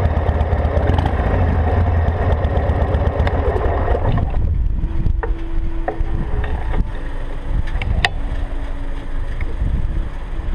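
Harley-Davidson Sportster XL883's air-cooled V-twin idling, then shut off about four seconds in. After that a low rumble and a few light clicks remain.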